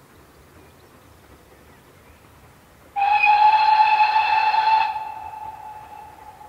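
Steam locomotive whistle sounding one blast of about two seconds, several tones at once, starting abruptly about three seconds in, then dying away with the lowest note lingering as an echo.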